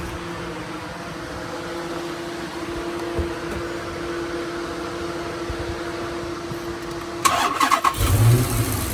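A steady hum, then about seven seconds in the starter cranks the 6.4-litre HEMI V8 of a 2013 Dodge Charger SRT8 and the engine catches and runs, during a compression test on a misfiring cylinder.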